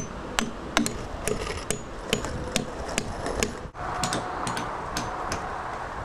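Hand hammer driving steel nails into an elm log, sharp metal-on-metal strikes about two a second. After a brief break about two-thirds of the way in, the strikes go on more faintly over a steady rushing background.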